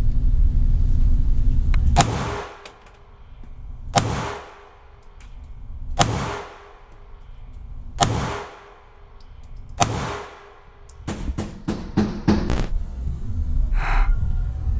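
Springfield Armory Hellcat 9mm pistol fired one-handed at an indoor range: five shots about two seconds apart, each echoing off the range walls, then a quick string of shorter, sharper cracks a little after ten seconds in. A steady low rumble sits under the start and the end.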